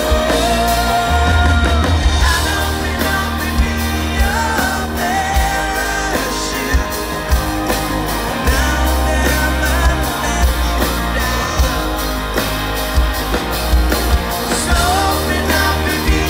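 Rock band playing live: a male lead singer sings over electric guitars, bass and drums with a steady beat and heavy bass.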